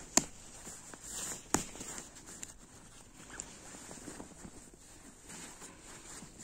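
Fabric of a semi-fleece camouflage suit rustling as a hand grips and folds it, with two short sharp clicks, one just after the start and one about a second and a half in.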